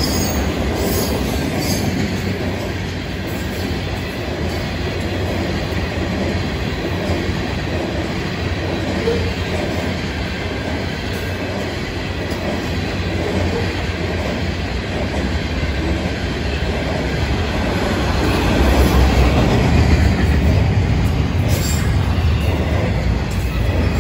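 Freight cars rolling past: a steady rumble and rattle of steel wheels on the rails, with a faint steady wheel squeal and occasional sharp clanks. The rumble grows louder near the end.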